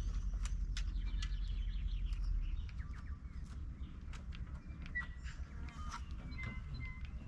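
Birds chirping and calling, short high notes scattered through, over a low rumble that eases about two and a half seconds in.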